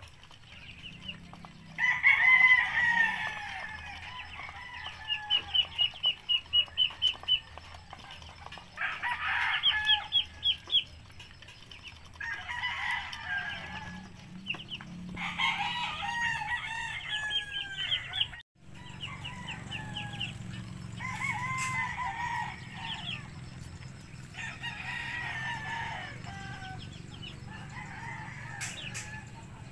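Domestic chickens calling in bursts every few seconds: clucking, with a quick run of repeated clucks and crowing-like calls.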